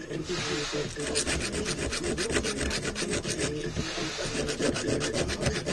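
Hand file scraping back and forth in quick, even strokes on the freshly cut edge of a metal plate, deburring it so no sharp edges are left to cut the wires.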